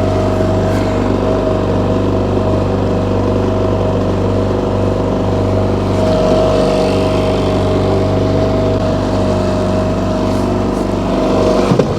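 Boat's outboard motor running at a steady speed with an even drone. Near the end the engine note breaks off abruptly with a few knocks as the propeller strikes the rocky river bottom.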